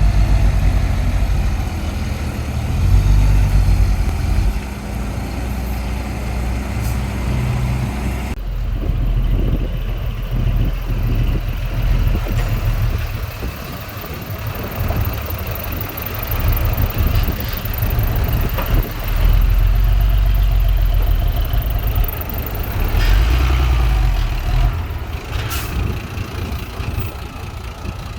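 Heavy diesel engines of earthmoving machines running, loud and low. The sound changes abruptly about eight seconds in.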